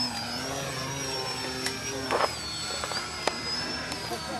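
Radio-controlled model plane (a flying lawn mower) buzzing in flight: its motor and propeller give a steady whine whose pitch wavers up and down, with a few sharp clicks in the middle.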